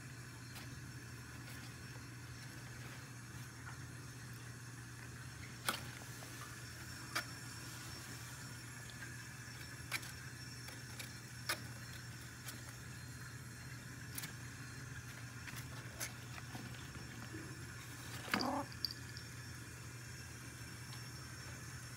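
Cat pawing through shredded-paper bedding in a cardboard box: faint, scattered sharp rustles and clicks of paper and claws on cardboard over a steady low hum. About eighteen seconds in comes one louder, short wavering cat call.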